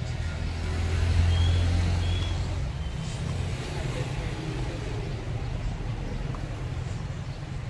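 Low rumble of a passing vehicle, swelling about a second in and fading by about three seconds, over a steady low hum.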